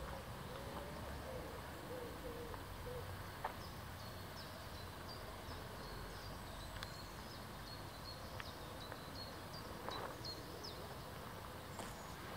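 Birds calling in woodland: a low wavering call over the first three seconds, then a run of short high chirps through the middle of the clip, with a few faint clicks.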